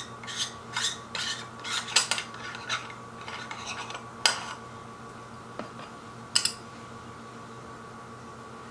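A threaded cap being unscrewed by hand, its threads scraping in short quick turns about three times a second for the first few seconds. Then two sharp clicks about two seconds apart as the parts are handled.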